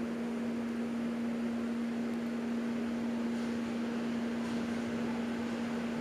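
A steady low hum, as of an electric fan or motor running, unchanged throughout, with a few faint light handling sounds around the middle.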